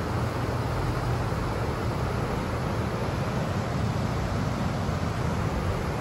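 Steady outdoor background noise: a continuous low rumble with a hiss over it, and no distinct events.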